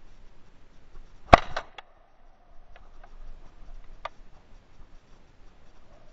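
A single close shotgun shot about a second in, followed by a few fainter clicks.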